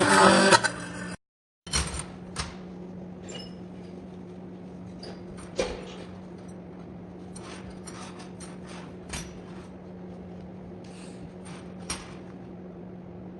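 Scattered light metal clicks and taps from 6 mm iron round bar being handled, over a steady low hum. In the first second a loud noisy sound with steady tones in it cuts off abruptly.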